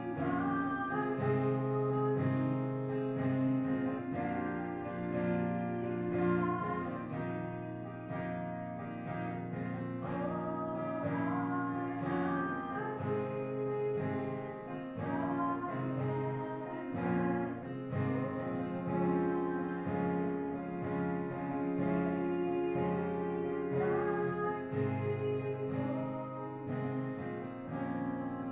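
Music led by acoustic guitar, strummed and picked, with sustained chords that change every few seconds.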